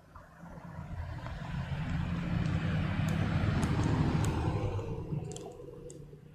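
A road vehicle driving past: engine and tyre noise rise to a peak about three to four seconds in, then fade away.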